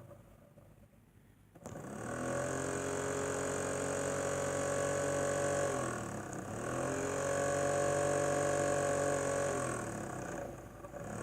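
Homemade 12-volt three-blade box fan's motor spinning up with a rising hum about two seconds in and running steadily. It slows and picks back up twice, near the middle and near the end. The owner says the motor rattles badly and needs replacing.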